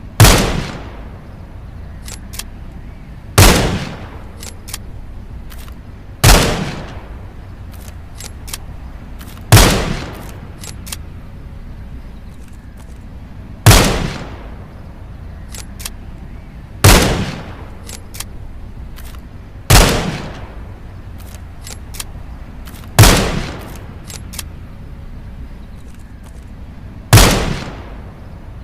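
.22 rifle firing single shots, nine in all, one every three to four seconds, each a sharp crack with a short tail. Fainter clicks are heard between the shots.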